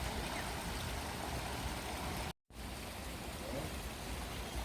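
Steady rush of flowing water from a stream or waterfall, cut off for a split second a little past the middle before it resumes.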